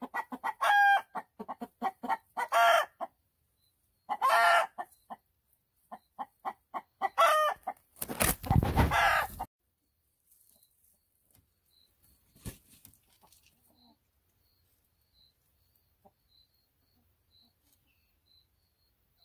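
A hen clucking and squawking in repeated short bursts, ending in a loud harsh squawk about eight seconds in, then falling quiet. These are alarm calls at a gopher snake crawling right beside her.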